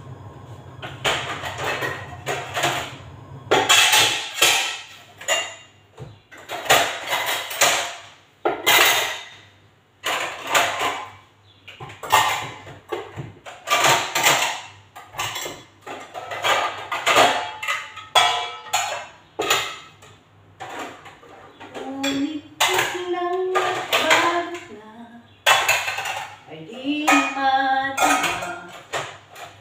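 Stainless steel pots and pans clanking and clattering as they are handled and stacked on a kitchen counter, in repeated irregular knocks.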